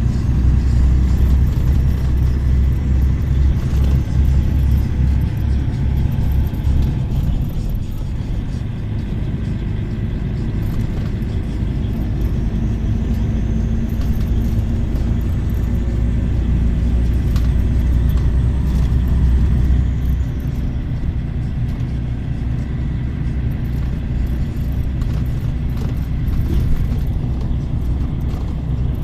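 Car driving along a road: a steady low rumble of engine and tyres, heavier for the first several seconds and again around the middle.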